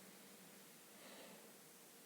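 Faint, steady rushing of a waterfall, heard as an even hiss at very low level, with a slight brief swell about a second in.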